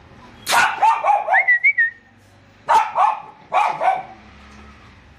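Pomeranian puppies yapping in three bursts of quick, high yips: the first about half a second in, the second and third just before and after the middle. The first burst ends in a high, rising whine.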